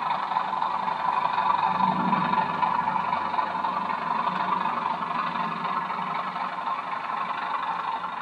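Model train running on the layout: a steady, even running sound.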